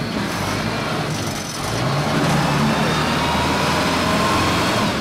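A farm machine's diesel engine running hard while the machine sits stuck in deep mud and will not move. Its note drops briefly about a second and a half in, then picks up again.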